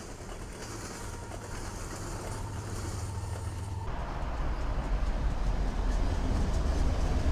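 Train rolling past, a steady low rumble that changes abruptly about four seconds in to a heavier, louder rumble.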